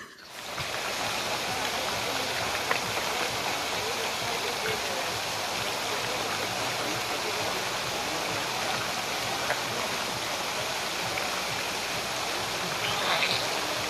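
Steady rushing noise, starting about half a second in and holding even throughout.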